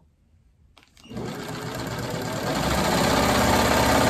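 Vintage Singer 15-91 sewing machine starting up about a second in and stitching a seam, building up to a steady run that grows louder over the first couple of seconds.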